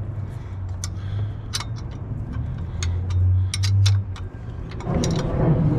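Sharp metallic clicks and clinks of a hand wrench or ratchet tightening the winch mounting bolts, over a low hum that grows louder near the end.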